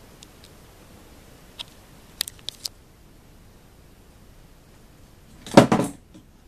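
Handling noise: a few light clicks in the middle, then a short, loud rattling clatter a little before the end.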